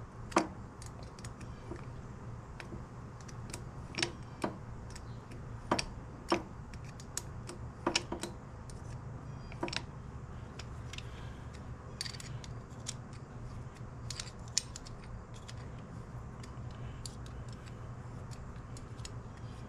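Small ratchet with a quarter-inch 12-point socket tightening the pad pin of a Harley Softail rear brake caliper: scattered, irregular metallic clicks and ticks, a few of them louder, over a steady low hum.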